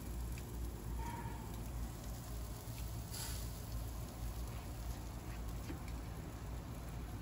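Pork belly sizzling and crackling on a barbecue grill, with a steady low rumble underneath and a brief louder hiss about three seconds in.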